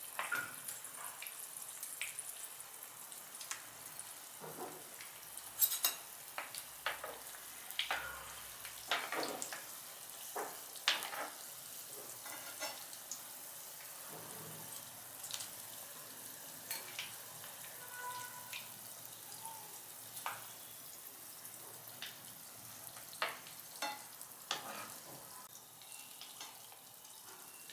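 Potato kababs deep-frying in hot oil in a pan: a steady sizzle with scattered pops and crackles.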